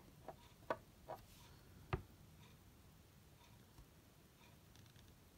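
Four small clicks and knocks within the first two seconds, the last the loudest, as a glass nail polish bottle is uncapped and handled on a wooden tabletop; then near silence.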